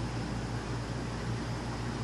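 SMC 36-inch industrial ceiling fan running at high speed: a steady rush of moving air over a constant low motor hum.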